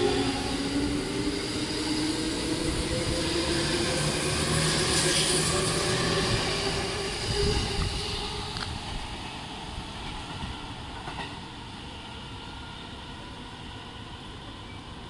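A JR E231-series electric train accelerating out of the station past the platform, its traction motors whining with a slowly rising pitch over the rumble of the wheels. The sound fades away over the second half as the train draws off down the line.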